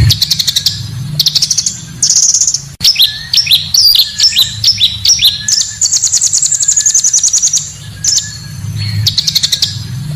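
Recorded song of the bird Indonesian bird keepers call pancawarna: phrases of rapid high trills and sharp, repeated chirps, used as a lure and training song, with a steady low hum underneath.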